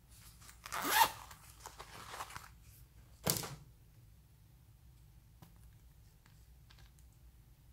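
Zippered plastic pencil case being handled: a rasping, zipper-like rustle, loudest about a second in, then a short sharp scrape a little after three seconds. A few faint clicks follow near the end as a plastic hand cream tube and its cap are handled.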